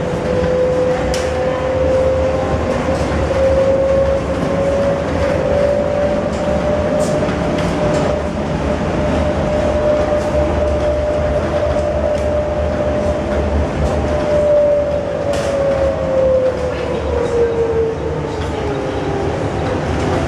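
Inside an SMRT APM 100 rubber-tyred light rail car running along its guideway: a steady motor whine over a low rumble, with a few sharp clicks. The whine falls in pitch over the last few seconds as the train slows.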